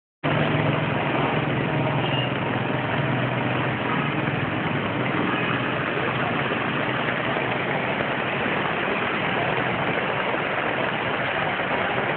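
Steady engine-like hum under a constant wash of noise, unchanging throughout.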